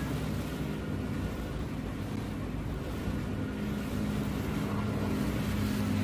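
Ceiling fan spinning at speed, its motor humming steadily under the rush of the blades.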